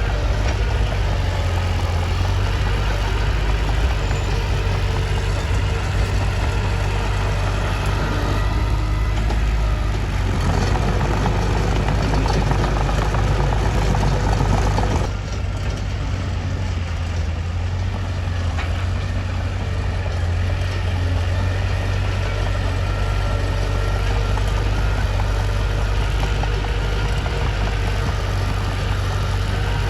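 Mitsubishi bulldozer's diesel engine running with a steady low drone; it grows louder and harsher about ten seconds in, then drops back suddenly about five seconds later.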